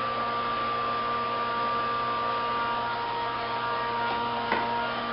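Handheld hair dryer running steadily: an even whir with a steady motor hum and whine. A light click about four and a half seconds in.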